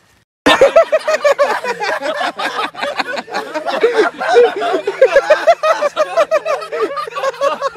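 A group of people laughing and yelling, starting abruptly about half a second in, with a steady low hum underneath.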